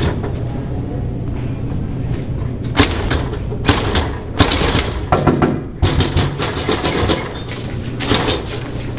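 Background music with sustained low notes. From about three seconds in comes a run of sharp knocks and clunks, fitting a glass entrance door's metal push bar being pressed and the door swinging open.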